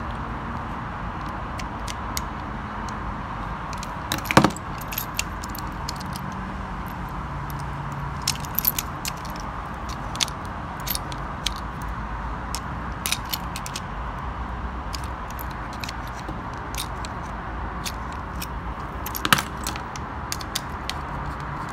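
Small scattered clicks and rattles of a metal screwdriver and plastic toy-train parts being handled, with two sharper knocks, one about four seconds in and one near the end, over a steady background hiss.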